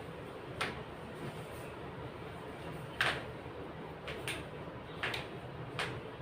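Five brief clicks or knocks over a low background hum, the loudest about three seconds in.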